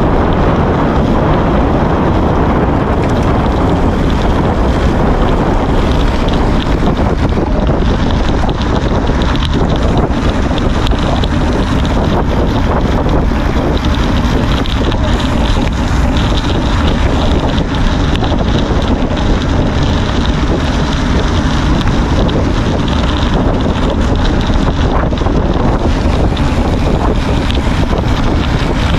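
Loud, steady wind noise buffeting the microphone of a camera riding along on a moving gravel bike.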